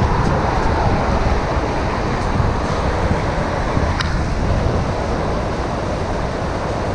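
Wind buffeting an action camera's microphone: a steady, loud rushing that rises and falls, with one sharp click about four seconds in.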